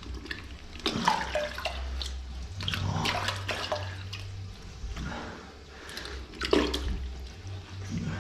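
Toilet-bowl water sloshing and gurgling in the trap as a hand in a long rubber glove pumps up and down in the outlet, in irregular splashy strokes, clearing slimy waste from the blocked toilet.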